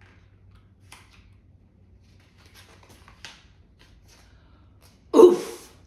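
Faint paper rustles and soft crinkles as a picture book's page is turned, then a loud exclaimed "Oof!" in a woman's voice near the end.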